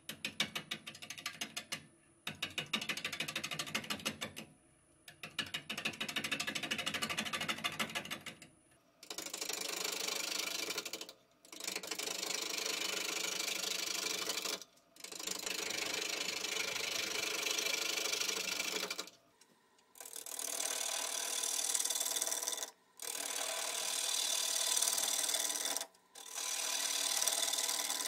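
Gouge cutting a spinning stone pine blank on a wood lathe, in about eight passes broken by short pauses as the tool lifts off. For the first eight seconds or so each pass is a rapid, even clatter of the tool striking the wood; after that the cut becomes a steady shearing hiss.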